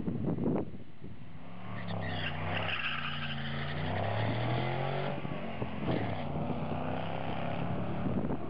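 Car engine revving under acceleration, its pitch rising and falling over several seconds after a rough pulsing at first.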